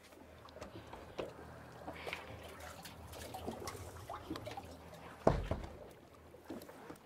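Muffled underwater sound picked up by a camera held beneath the sea surface: a faint wash of moving water with scattered small ticks, and one low thump about five seconds in.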